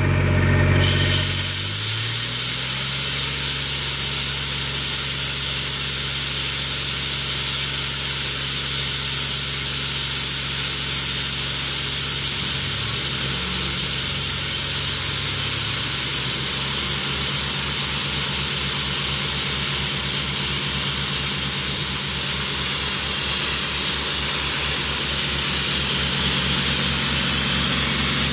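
Ingersoll Rand 7/20 towable diesel air compressor running at a steady note, with a loud steady hiss of air setting in about a second in, as compressed air blows off through an opened outlet valve.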